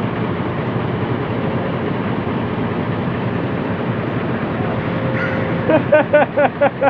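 Heavy diesel engine running steadily. Near the end comes a quick run of short pitched sounds, about six a second.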